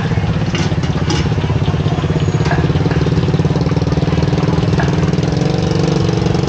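A small engine idling steadily, a low pulsing hum that firms up about two-thirds of the way through, with a few light clicks over it.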